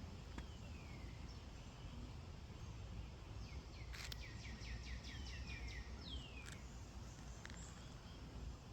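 Birds calling outdoors: a few single falling whistled notes, and about three and a half seconds in a quick run of repeated falling notes lasting a couple of seconds. Underneath is a steady low rumble, with a few faint sharp clicks.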